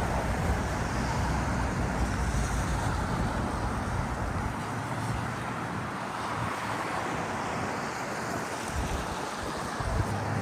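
Steady hiss of city traffic, with a low wind rumble on the microphone that drops away about halfway through and returns near the end.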